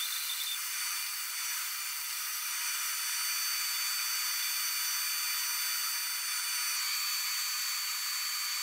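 Bandsaw running steadily, its blade cutting a curve through a 3/4-inch wooden board.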